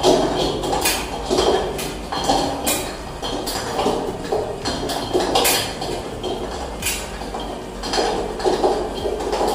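Crompton Parkinson Tapti 36-inch ceiling fan running while wobbling on its downrod, its loose metal covers and fittings rattling and clinking irregularly. A low steady hum runs underneath.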